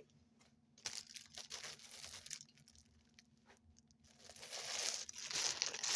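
Plastic packaging crinkling and rustling as it is handled: a short spell about a second in, then louder, continuous rustling from about four seconds on.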